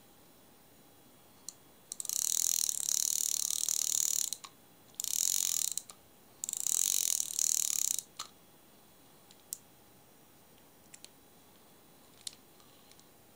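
Daiwa Silver 1300C fixed-spool spinning reel being cranked, its ratchet clicking rapidly in three runs of a second or two each, followed by a few single mechanical clicks.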